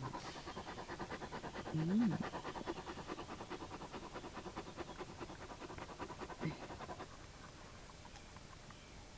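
Large dog panting close up, quick and even, with a brief low moan about two seconds in. The panting stops about seven seconds in.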